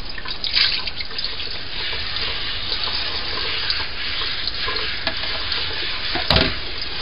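Kitchen faucet running, its stream splashing through a plastic colander being rinsed in the sink; a single knock about six seconds in.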